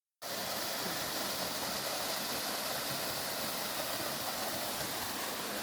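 Small waterfall rushing: a steady, even hiss of falling water.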